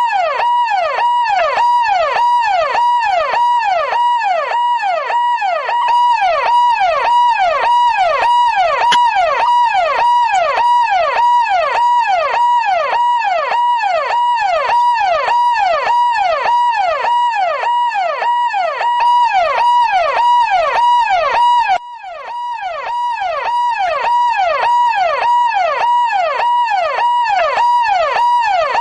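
Police car siren in a fast yelp, each cycle a quick rise and fall in pitch, repeating evenly over a steady high tone. It dips briefly about two-thirds of the way through, then comes back.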